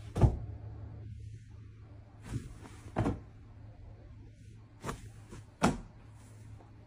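A cat jumping against a door and landing on a wooden floor: a sharp knock just after the start and another near the end, with a few softer knocks and thumps between, over a steady low hum.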